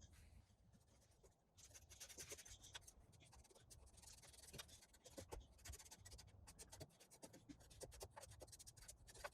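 Felt-tip marker, a silver Sharpie, scratching faintly in quick short strokes as it traces an outline around a cut-out template on the center console trim.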